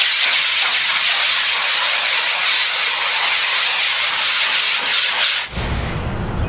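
Compressed-air blowgun hissing steadily as it blows debris out of an air conditioner's condenser coil, cutting off suddenly about five and a half seconds in, leaving a low rumble.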